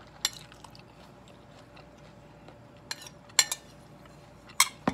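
A metal spoon clinking against a plate of food as it scoops. There are a few separate clinks: one just after the start, two around three seconds in, and one near the end.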